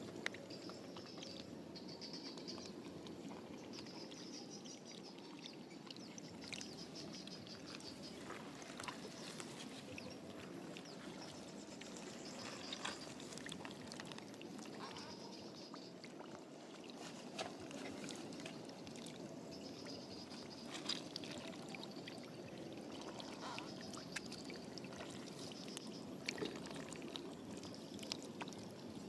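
Faint sloshing and trickling of shallow muddy water, with scattered small splashes, as hands work through it feeling for fish. A faint high chirring comes and goes in the background.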